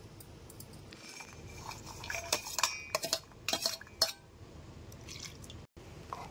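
Garlic cloves and green chillies tipped from a steel plate into a steel mixer-grinder jar, a quick run of clinks and clatters against the metal in the middle.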